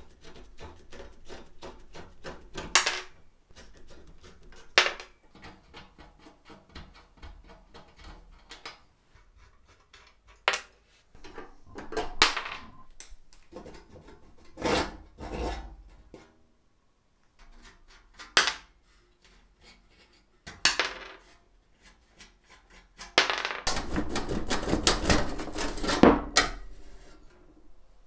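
Rusty sheet-metal and cast-iron parts of an antique potato peeler being taken apart by hand with a screwdriver and spanner: scraping and creaking of rusted screws, with sharp metallic knocks now and then. Near the end comes a longer stretch of grinding and rattling.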